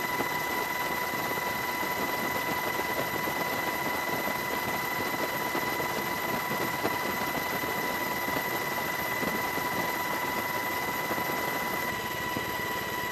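Helicopter noise: a steady rushing drone with constant high whining tones, a little quieter near the end.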